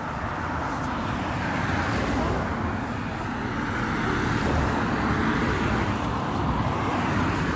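Road traffic: a car driving past on the road alongside, its tyre and engine noise building over the first few seconds and staying loud.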